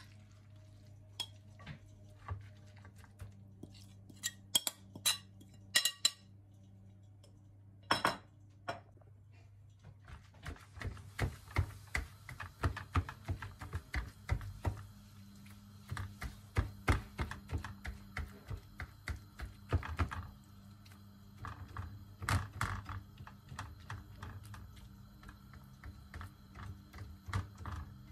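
Sharp clinks and knocks as shredded leeks and carrots are tipped from a plate into a nonstick frying pan with oil. From about ten seconds in, a soft sizzle with many small crackles and rustles as the vegetables are spread out by hand in the pan. A steady low hum runs underneath.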